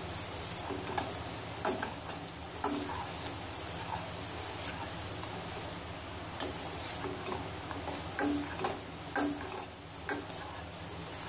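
Metal spoon clinking and scraping against the sides and bottom of a metal saucepan while stirring semolina cooking in milk, in irregular taps over a steady high hiss.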